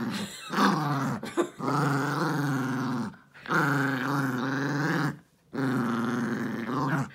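Yorkshire terrier play-growling while mauling a stuffed toy: about four long, low growls of a second or more each, broken by short pauses for breath.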